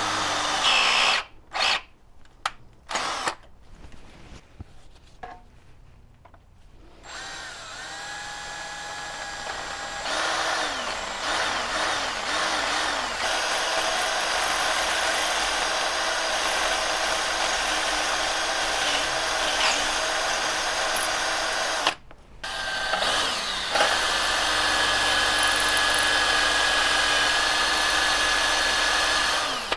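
Cordless drill boring out a broken exhaust stud in the exhaust manifold flange of a Chevy 350 V8. It runs in several short bursts at first, then in long steady runs with one brief stop a little past the middle, and cuts off at the end.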